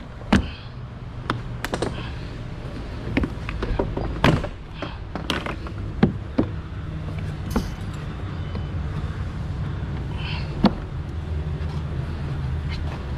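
Plastic retaining clips of a Mazda CX-5 door trim panel snapping loose as the panel is pried off the door, about ten sharp snaps and knocks scattered unevenly, over a steady low hum.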